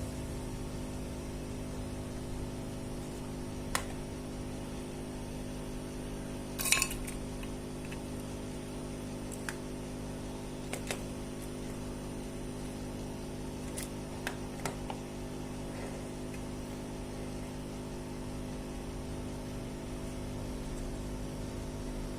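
Steady low electrical hum with scattered sharp clicks and clinks of small tools and parts being handled, the loudest a quick cluster about seven seconds in.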